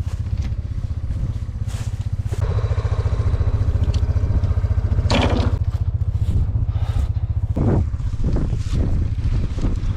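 A small vehicle engine running steadily with a fast low throb, picking up somewhat about two and a half seconds in, with a few brief rushes of wind or rustling over it.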